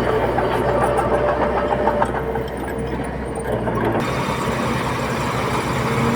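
Engines of heavy earthmoving machinery running steadily. The engine sound changes abruptly about four seconds in.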